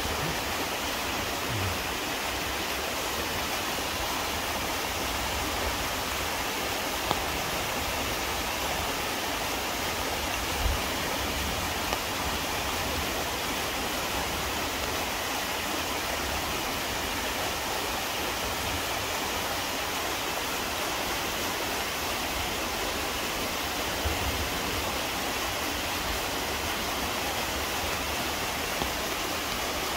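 Waterfall pouring into its pool: a steady, unbroken rush of falling water, with a few faint low bumps.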